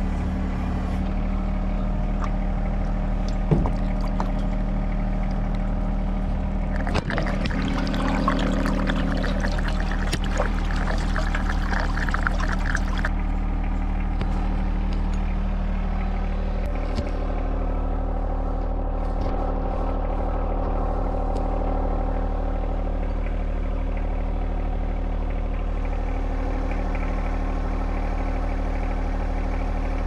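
John Deere 1025R compact tractor's three-cylinder diesel running steadily. About seven seconds in, a rattling, pouring noise joins it for several seconds.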